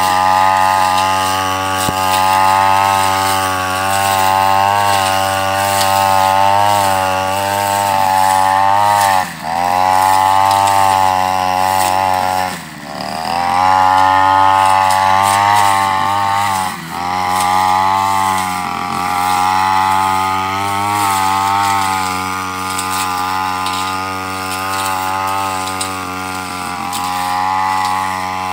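Backpack brush cutter engine running at high revs as its blade cuts grass, the engine note dipping briefly and picking back up about three times in the first twenty seconds or so.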